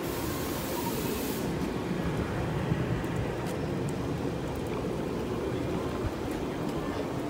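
A train running past on the platform track: a steady rumble of the train going by, with a high hiss over it for the first second or so.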